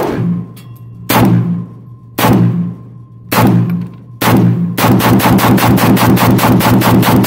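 AK-pattern pistol being fired: five single shots about a second apart, then a rapid string of about fifteen shots fired in quick succession that runs on to the end.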